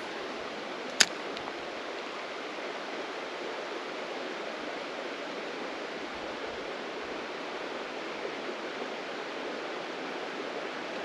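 Steady rush of a shallow flowing creek, with one sharp click about a second in.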